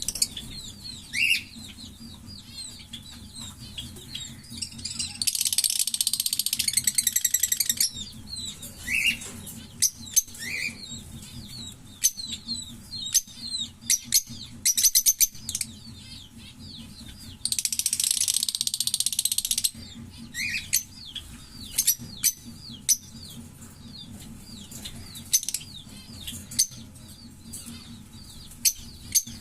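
A pair of green Fischer's lovebirds chirping with short, high, sweeping calls and clicks. Twice, near 5 s and near 18 s, one breaks into a loud, rapid, pulsing chatter lasting about two and a half seconds: the 'giggle' song that Fischer's lovebirds are kept and trained for. A steady low hum runs underneath.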